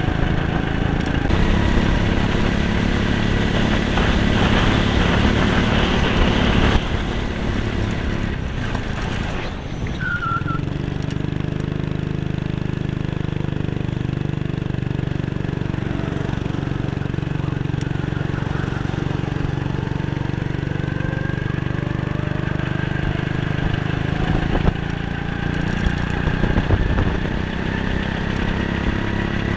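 Go-kart engine running at speed on track. It drops off the throttle about a quarter of the way in, with a brief high squeal, then climbs steadily in pitch as the kart accelerates again.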